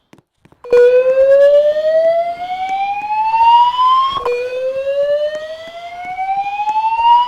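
Fire alarm voice-evacuation speakers sounding a whoop tone, the evacuation signal of a fire alarm test: two rising sweeps, each climbing for about three and a half seconds and then dropping back. A fainter high beep repeats about once a second behind them.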